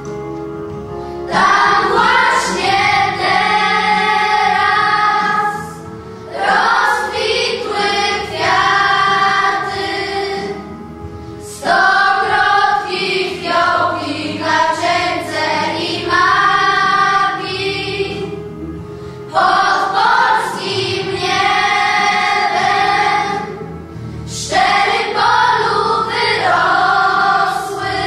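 Children's choir singing a song in unison, line by line with short breaks between phrases.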